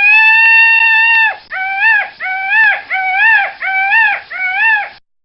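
A peacock calling: one long wail held for over a second, then five shorter calls, each rising and falling in pitch.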